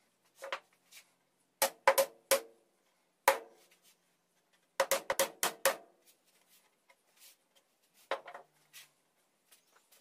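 Sharp knocks on the wooden birdhouse roof in irregular groups, each with a brief ring: four close together around two seconds in, one more a second later, a quick run of about seven near the middle, and a last pair near the end.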